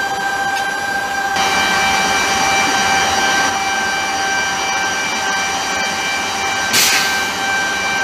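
Jet turbine engine running steadily: a whine of several constant high tones over a hiss. A brief burst of sharper hiss comes about seven seconds in.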